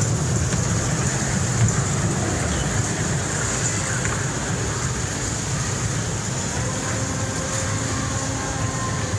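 Small electric kiddie train rolling along its track, giving a steady low rumble with a steady hiss above it.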